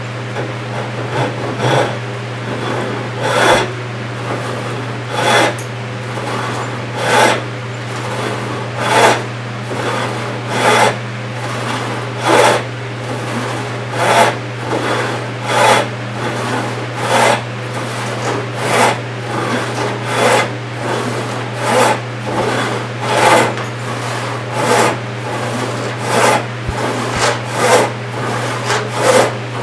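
An 1888–96 Disston No. 7 rip saw, 28 inches long with 6 points per inch, ripping 4/4 white oak by hand. It makes a rasping cutting stroke about every one and a half to two seconds with quieter return strokes between, after lighter short strokes for the first few seconds as the cut is started.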